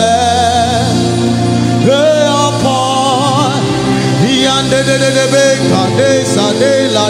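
Gospel worship music: a singer holding and bending long, wavering notes over steady instrumental accompaniment.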